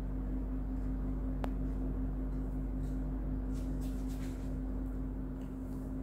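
Faint scratching of a dry-erase marker on a whiteboard as writing is finished and a line is drawn, a few short strokes with a longer one around the middle, over a steady low hum.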